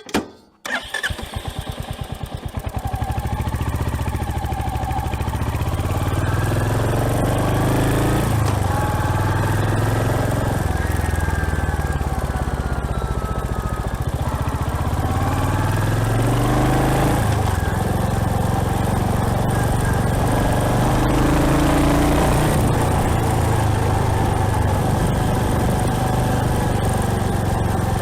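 Royal Enfield Hunter 350's 349 cc single-cylinder engine started, catching within about a second, then running steadily with its pitch rising and falling.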